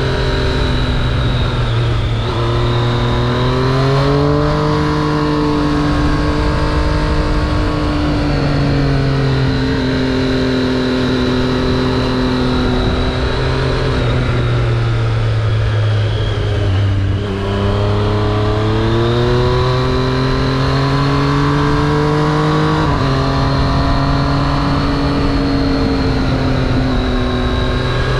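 Triumph Street Triple RS's inline three-cylinder engine running under way, its pitch rising and falling with the throttle. The pitch jumps up sharply at downshifts about two and seventeen seconds in and drops at an upshift about twenty-three seconds in.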